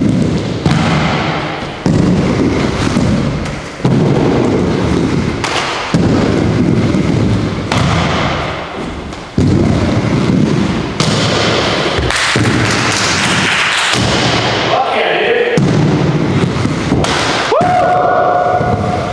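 Inline skate wheels rolling on a wooden halfpipe. The rumble starts sharply at each drop-in or landing and fades as the skater slows up the ramp, about every two seconds.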